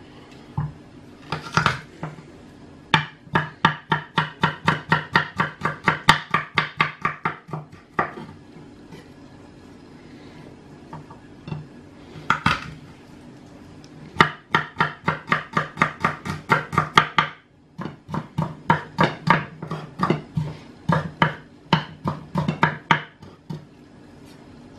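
Kitchen knife chopping garlic cloves on a wooden cutting board: quick knocks, about four or five a second, in three runs with short pauses between.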